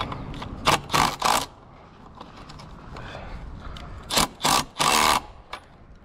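Cordless impact driver hammering a strand clamp bolt in short trigger pulls: three quick bursts about a second in and three more about four seconds in.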